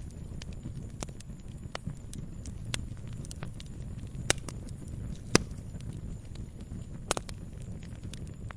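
Campfire burning: a steady low rumble of flames with irregular sharp crackles and pops from the burning wood, the loudest pops about four and five seconds in and another near seven seconds.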